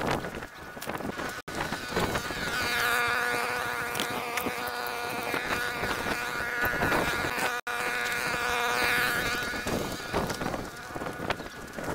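A small engine buzzing steadily at a high, even pitch, with the crackle and rustle of dry sticks and branches being picked up and carried.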